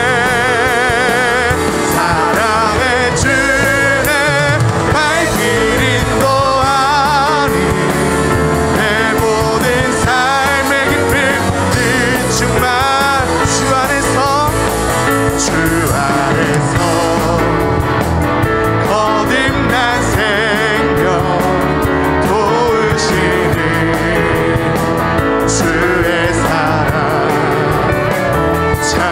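Live praise band playing a Korean worship song: a man singing with vibrato over electric guitar, keyboard and drum kit, the drums and cymbals more prominent in the second half.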